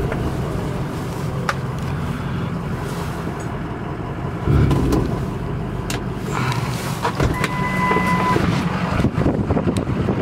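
2006 Ford F350's 6.0-litre Power Stroke V8 diesel idling, heard from inside the cab, with a few clicks and a low thump about four and a half seconds in. A steady electronic beep about a second long sounds some seven seconds in.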